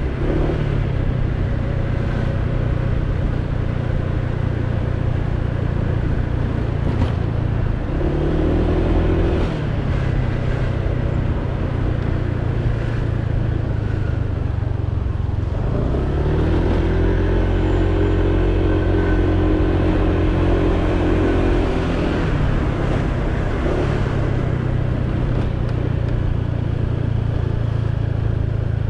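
Honda PCX 125 scooter's single-cylinder engine running on the move, heard from the rider's seat. The engine note rises under throttle briefly about eight seconds in, and again for several seconds from about sixteen seconds in, before easing back.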